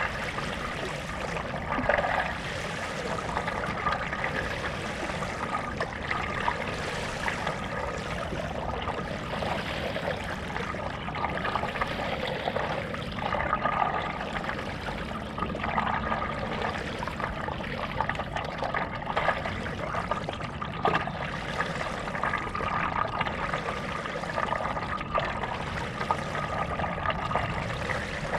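Stand-up paddle strokes in lake water: the blade dipping and pulling with splashing and trickling about every two seconds, water dribbling off the paddle between strokes.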